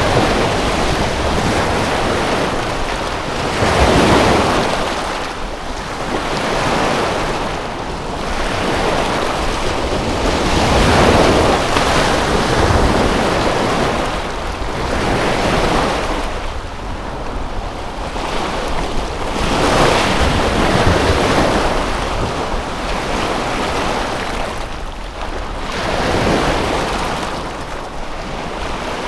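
Waves washing ashore in a continuous rush of water, surging and falling back every three to five seconds.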